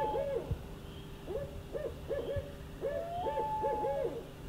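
An owl hooting in three phrases of short rising-and-falling notes, each phrase a few hoots in quick succession.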